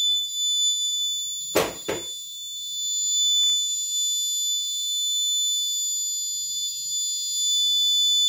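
The kit's piezo alarm buzzer sounds a steady, continuous high-pitched tone, the collision alert after the ultrasonic sensor has detected a crash. Two brief knocks come about a second and a half in.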